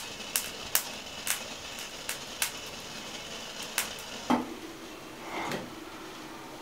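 Irregular sharp clicks and light knocks, about a dozen, over a faint room background: small hard objects tapping and clinking in a kitchen.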